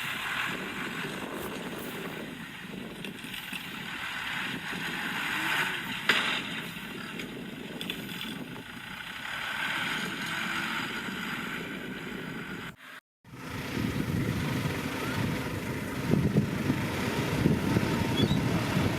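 Heavy diesel earthmoving machinery running and working. The sound drops out briefly about two-thirds of the way through, then comes back louder and heavier.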